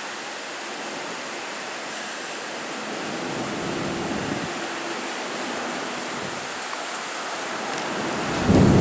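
Steady rushing background noise with faint low droning tones a few seconds in, then a loud low rumble that comes in suddenly near the end.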